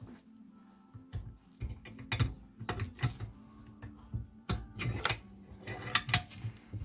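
Irregular metal clicks and knocks from a bench vise and the steel parts clamped in it, as a bushing is pressed onto a driveshaft coupling.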